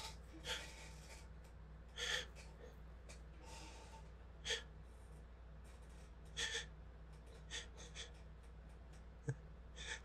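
A person's short, sharp gasping breaths, one every second or so, building up to a sneeze brought on by spice.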